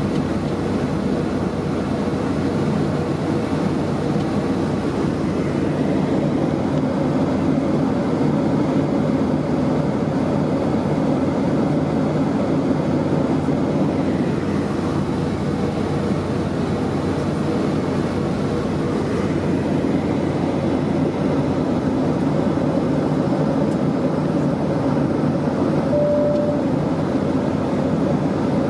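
Steady cabin noise of a Boeing 757-28A in flight, the drone of its two Rolls-Royce RB211 engines and the airflow over the fuselage, heard from a window seat. A short single tone sounds briefly near the end.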